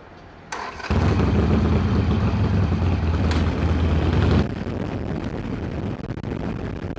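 Harley-Davidson Iron 883's air-cooled V-twin starting up about half a second in. It runs loudly for a few seconds, then settles to a quieter idle.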